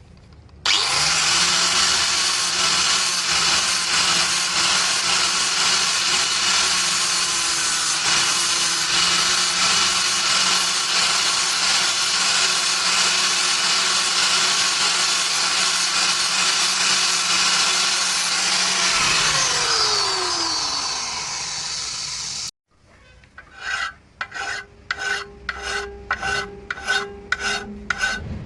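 An electric grinding tool runs against the workpiece for about twenty seconds, a steady abrasive rasp over the motor's hum, and the motor's pitch falls as it winds down near the end. After a sudden cut come even hand-filing strokes, about two a second.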